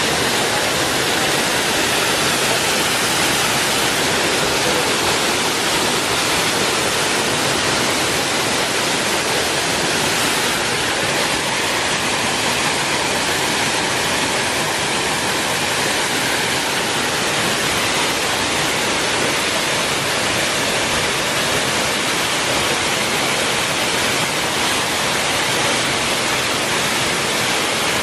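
Waterfall pouring, a steady rushing of water with no change in level.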